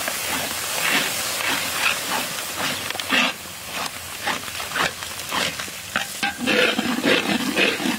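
Metal spatula scraping and stirring a wet paste in a large wok, in repeated strokes about two a second, over a steady sizzle of frying.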